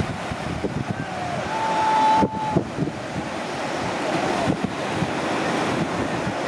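Sea waves washing in steadily, with wind buffeting the microphone.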